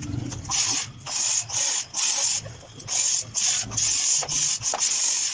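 A steel sheet's surface being rubbed or scrubbed by hand in repeated back-and-forth strokes, about nine scratchy strokes at roughly two a second.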